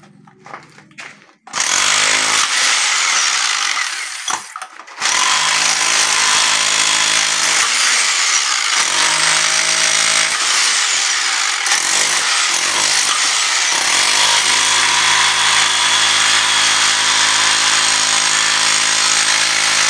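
Handheld electric power tool working into the concrete footing of a cast-iron hand pump to break it loose. It starts about a second and a half in, stops briefly near five seconds, and dips a few times before running steadily.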